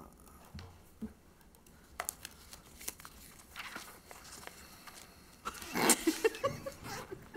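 Small handling noises in a quiet meeting room: scattered light clicks and paper rustling, with a brief louder rustle about six seconds in.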